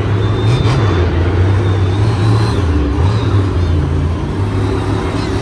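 Monster truck's supercharged V8 running loud, its pitch wavering up and down with the throttle.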